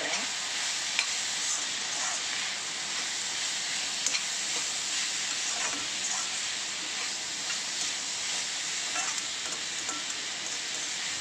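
Raw banana cubes with onion and tomato sautéing in oil in a kadai, a steady sizzle, with a metal spatula scraping and knocking against the pan now and then as they are stirred.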